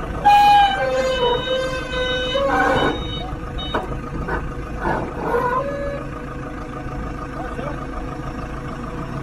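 Forklift diesel engines running as a rough-terrain forklift moves up a steel ramp into a shipping container. A loud held tone changes pitch a few times near the start, and a few metal clanks follow between about two and six seconds in.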